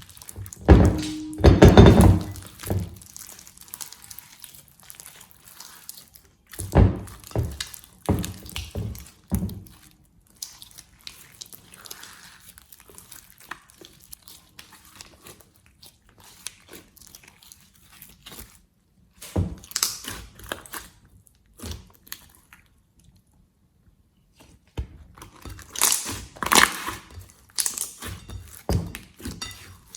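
Slime being worked by hand, squeezed and pressed, giving irregular clusters of sticky clicks, crackles and thunks, with a brief silent gap about two-thirds of the way through.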